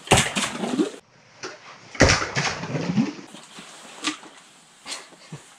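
Two sharp knocks about two seconds apart, each followed by about a second of rustling handling noise, then a few fainter clicks.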